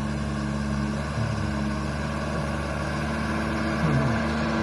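Diesel engine of an old Mitsubishi light truck, laden with oil palm fruit bunches, running at a steady pull on a gravel road.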